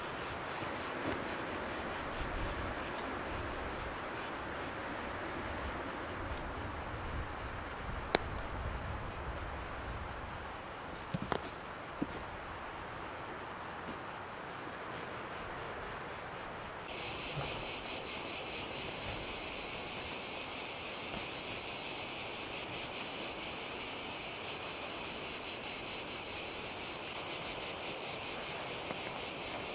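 Steady high-pitched chirring of cicadas, which gets abruptly louder a little past halfway. A sharp click about a third of the way in and a fainter one shortly after.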